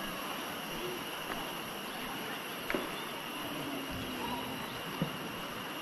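Forest ambience with a steady high insect drone over a constant hiss, broken by two sharp clicks, one about two and a half seconds in and one about five seconds in.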